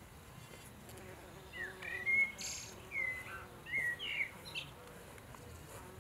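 Bees buzzing around flowers in a faint steady hum. A songbird breaks in with a quick series of short chirps that sweep up and down, from about one and a half to four and a half seconds in.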